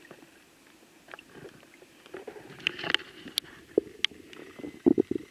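Lake water sloshing and splashing around a wading detectorist, with scattered small clicks and knocks and a cluster of louder splashes near the end.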